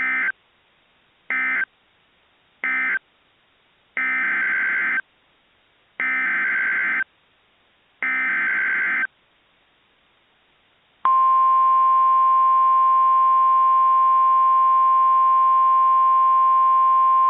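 Emergency Alert System SAME data bursts on NOAA Weather Radio: three short end-of-message bursts, then three longer header bursts of about a second each announcing the next warning. About 11 s in, the steady, loud single-pitched weather radio warning alarm tone starts.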